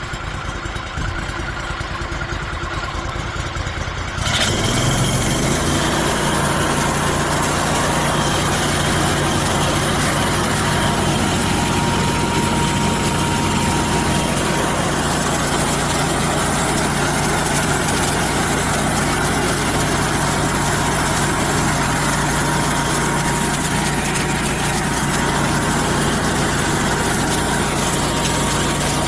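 Homemade band sawmill running: its engine runs steadily, and about four seconds in the sound jumps louder and brighter as the band blade starts its lengthwise cut through a mesquite log, a steady sawing hiss over the engine that holds from then on.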